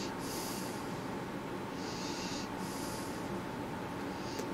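A man breathing through his nose close to the microphone, several slow hissing breaths over a steady low background hiss. A small click near the end as his thumb presses a button on the radio.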